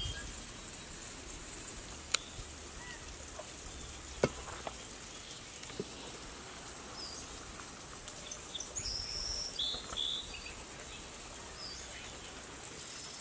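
Outdoor ambience: a steady high hiss of insects, with a few short bird chirps about nine to ten seconds in. Two sharp clicks, about two and four seconds in, stand out above it.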